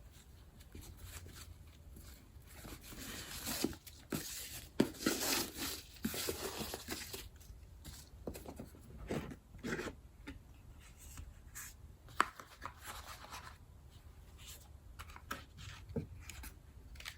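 A boxed purchase being opened by hand: paper packaging rustling and tearing, with scattered taps and knocks as the box and its lid are handled.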